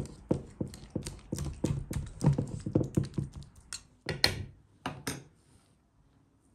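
Metal spoon scraping and tapping in a metal baking pan as a thick filling is spread, in quick repeated strokes about three a second, then two louder scrapes about four and five seconds in.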